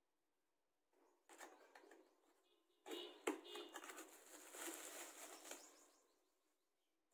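Cardboard box flaps opening and plastic bubble wrap rustling and crinkling as hands handle the packaging, with a sharp click about three seconds in.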